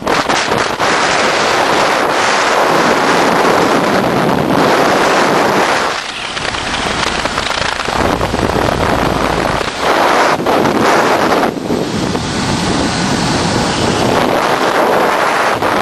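Wind rushing over the microphone of a motorcycle riding at speed: a loud, steady roar of noise with no clear engine note, easing briefly about six seconds in.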